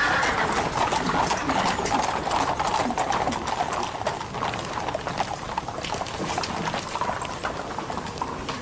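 Horse hooves clip-clopping in a steady run of irregular knocks.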